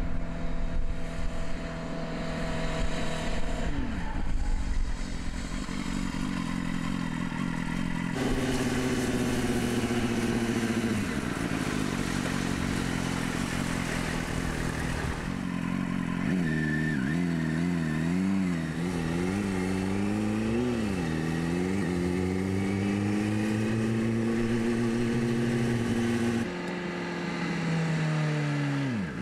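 BMW S 1000 RR's inline-four engine revving under way, its pitch rising and falling unevenly for several seconds in the middle. It then holds a smoothly rising note before dropping away sharply near the end.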